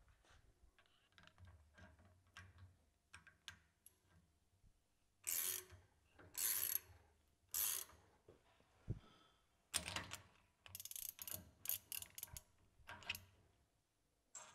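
A two-jaw bearing puller being worked on a centrifugal pump shaft clamped in a vise, drawing a ball bearing off the shaft: short bursts of metallic clicking and scraping. Three come about a second apart, there is a low knock, and then a quicker run of bursts follows.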